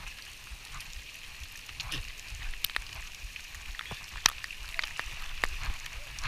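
Rain with scattered drops ticking sharply close by, irregularly, over a steady high-pitched hiss and a low rumble.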